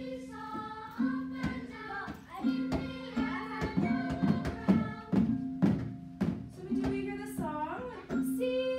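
A sung children's song over a low note that repeats about once a second, with sharp taps scattered through it.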